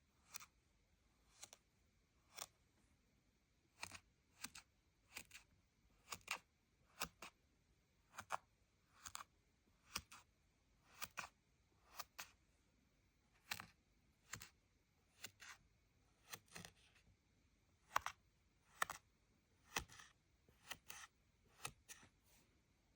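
Kinetic sand being sliced, each cut a short soft crunch, coming about once a second with some in quick pairs, over near silence.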